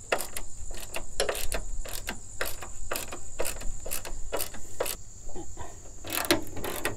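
Ratchet wrench clicking in short runs, several clicks a second, as a hood hinge bolt is worked loose. A steady high insect trill runs behind it.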